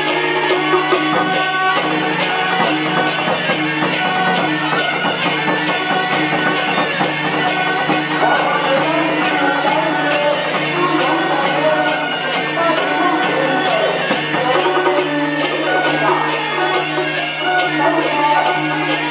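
Temple-procession music: cymbals clash in an even beat of about two a second over a steady low drone and a wandering melody.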